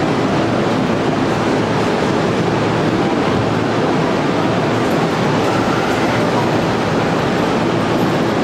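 Electric commuter train running slowly alongside a station platform, a steady noise of wheels on rails and running gear without any breaks.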